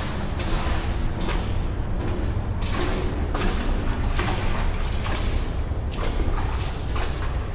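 Footsteps at a walking pace, about one a second, echoing inside a creek tunnel, over a steady low rumble.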